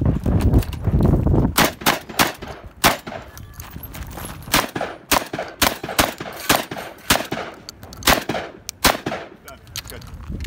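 A shotgun fired in a rapid string of about fifteen shots, roughly two a second, starting about a second and a half in and stopping near the end.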